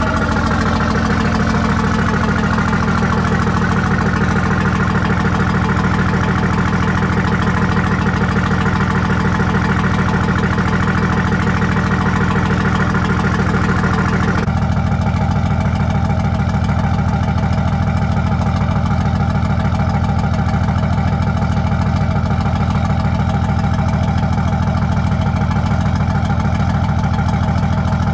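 The marine engine of a 1943 LCVP Higgins boat idling steadily. It drops slightly in pitch over the first few seconds, and its tone changes abruptly about halfway through.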